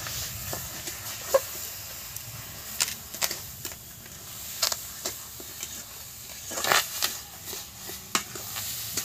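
A metal spatula scrapes and clinks against a metal wok, at irregular intervals, as thick palm-fruit pulp and sugar are stirred while they heat, over a faint steady hiss.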